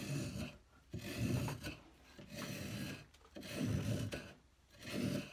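Curve-soled Record 151 spokeshave, just restored with a freshly sharpened blade, taking fine shavings off a curved wooden workpiece: five rasping strokes about a second apart, each pass ending before the next begins.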